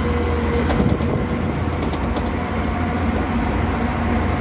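Caterpillar 12H motor grader's diesel engine running steadily under load in third gear with the blade full of material, heard from inside the cab, with a few brief knocks and rattles about a second in.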